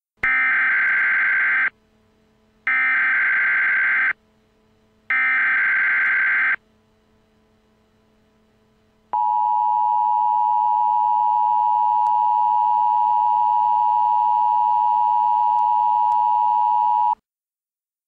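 Emergency Alert System SAME header: three identical harsh digital data bursts, each about a second and a half long with a short gap between. Then the EAS two-tone attention signal sounds steadily for about eight seconds and cuts off abruptly.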